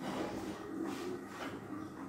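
A dog eating pâté from a stainless steel bowl: quiet, irregular licking and chewing noises.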